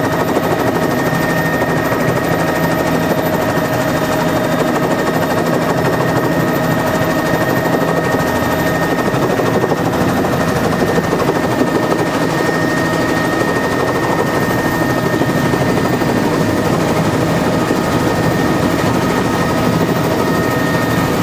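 A helicopter heard from inside its cabin: the rotor beats in a rapid, steady chop over a constant engine whine, held at an even level as the aircraft flies in low to land.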